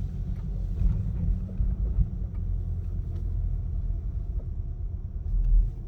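Low rumble inside the cabin of a 2019 VW Golf R rolling at a crawl with the windows shut, with a few faint ticks and creaks. The owner takes such low-speed creaks for noise from the newly fitted KW lowering springs at the front.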